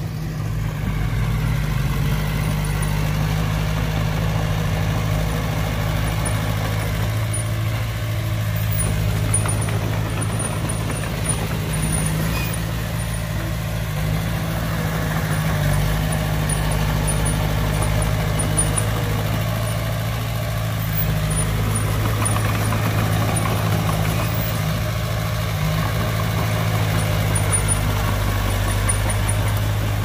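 Heavy diesel engine of a dump truck or bulldozer running steadily, a constant low drone with no revving or stops.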